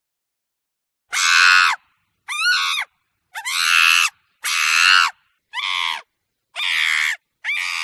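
A monkey giving a series of seven short, harsh screaming calls, each about half a second long, starting about a second in and separated by dead silence, with the last call cut off at the end.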